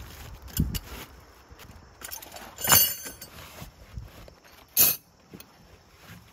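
Metal tent pegs clinking and rattling as they are handled and packed into a canvas peg case. There are two louder metallic clanks, one near the middle that rings briefly and one about five seconds in.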